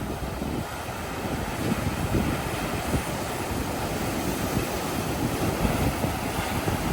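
Ocean waves washing onto the shore in a steady hiss, with wind buffeting the microphone in a low, gusty rumble.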